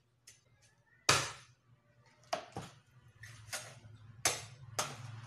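A cleaver chopping through a raw chicken onto a wooden chopping board: about six sharp chops at uneven spacing, the first the loudest.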